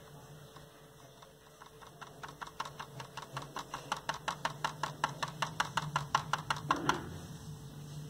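Cotton bud dabbed quickly against the painting paper, a fast even run of light taps, about six a second, that starts about two seconds in, grows louder and stops near the end, over a low steady hum.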